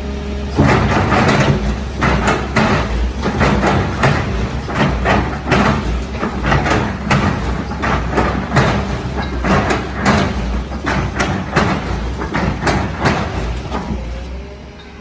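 Heavy machine's engine running with a low rumble under a string of irregular knocks and clanks, about two or three a second, that fade away near the end.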